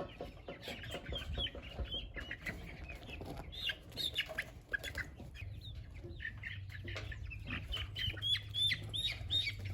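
Young chickens peeping and chirping in many quick, short, high calls, with a low steady hum underneath from about halfway.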